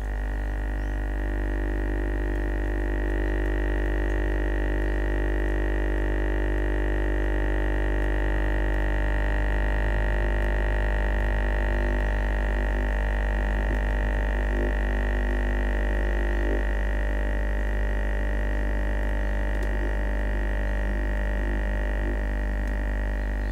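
A steady, low-pitched buzzy drone: a single test tone driving the vibrating surface, thick with overtones. It gets louder right at the start and then holds unchanged. The tone is tuned to one of the water droplet's resonant frequencies.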